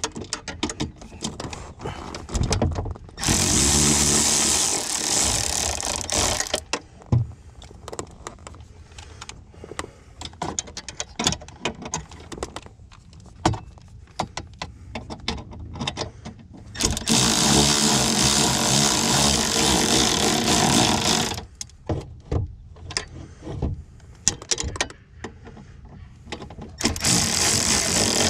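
Power drill running in three bursts, a long one a few seconds in, another in the middle and a short one near the end, with scattered clicks and knocks of tool handling between.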